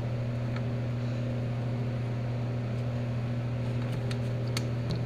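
Steady low hum of a running machine, even in level throughout, with a few faint light clicks, one early and a couple near the end.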